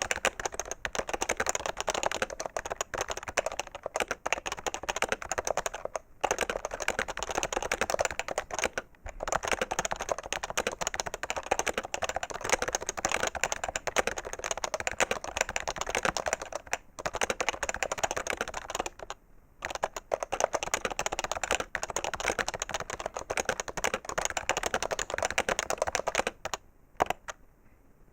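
Fast, continuous typing on a PFU HHKB Professional 2 keyboard with Topre electrostatic capacitive key switches: a dense run of keystrokes with a few brief pauses, thinning to a few last strokes near the end.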